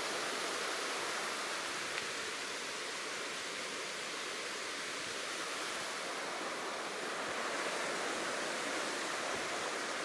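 Steady rushing of water from a waterfall and the shallow stream running over rocks below it, with a faint click about two seconds in.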